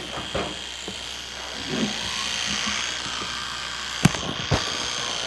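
Electric toothbrush buzzing steadily with a high hum while brushing teeth, with two sharp knocks about four seconds in.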